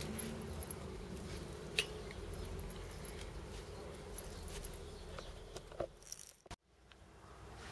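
Light metallic jingling and clicking of a cat's collar tag as the cat scratches and grooms itself, over a steady low background rumble. The sound cuts out briefly about six and a half seconds in.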